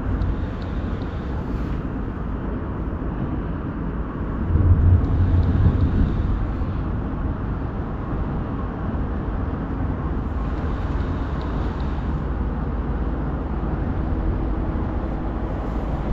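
A steady low motor rumble that swells louder for a couple of seconds about five seconds in.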